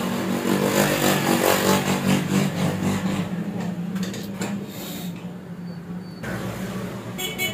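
A motor vehicle engine running, louder over the first few seconds and then fading, over a steady low hum.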